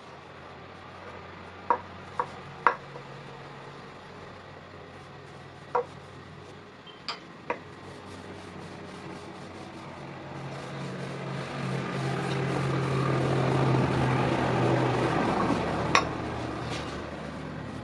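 A few light metallic clinks at scattered moments, with a motor vehicle passing by: its engine hum and road noise swell up from about ten seconds in and ease off near the end.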